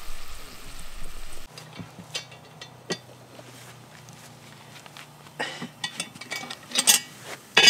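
Curry sizzling in a cast-iron Dutch pot for about the first second and a half, then metal clinks and clanks from the pot's wire bail handle and iron lid as the pot is lifted off the charcoal and set down, growing busier in the last couple of seconds with the loudest clank at the very end.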